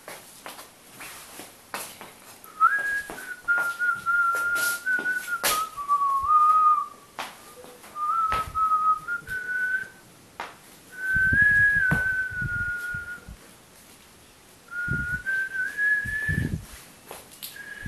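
A person whistling a tune: four phrases of held, slightly wavering notes stepping up and down, with short breaks between them. Scattered sharp clicks and a few low thumps from handling or footsteps run underneath.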